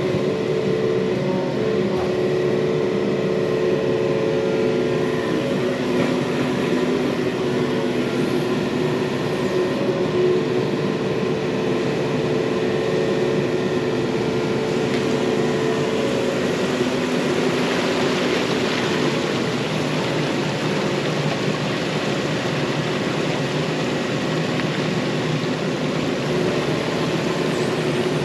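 Yanmar mini excavator's diesel engine running steadily throughout, with a few steady whining tones over it.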